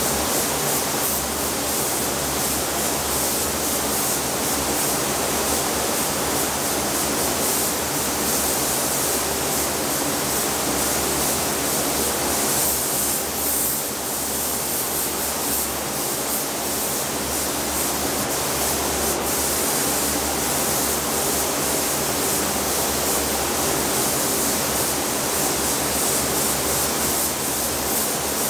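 Air spray gun hissing steadily as it sprays paint onto a plastic grille, over the constant rush and low hum of a paint booth's air flow.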